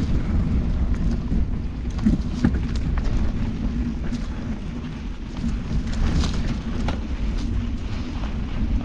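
Mountain bike rolling over a leaf-strewn dirt trail, picked up by a camera on the handlebar: a steady low rumble of tyres and frame vibration, with scattered sharp clicks and rattles as the bike hits bumps.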